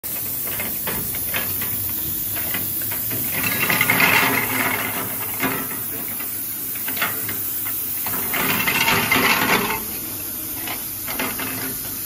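Cleated-belt bottle elevator running, lifting plastic flat bottles out of a stainless-steel hopper: a steady mechanical hiss with the bottles clicking and clattering against each other and the steel. The clatter grows louder twice, about four and nine seconds in.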